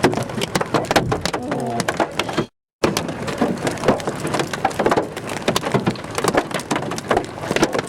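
Large hailstones pelting down in a rapid, irregular clatter of sharp cracks on hard surfaces, over the hiss of heavy rain. The sound cuts out briefly about two and a half seconds in.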